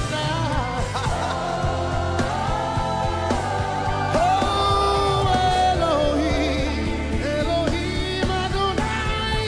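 Live worship music: a voice holding long, gliding sung notes over a band's sustained chords and steady bass.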